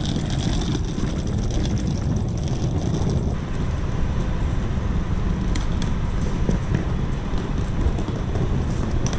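Steady low rumble of a vehicle in motion, with wind noise and scattered small clicks and rattles.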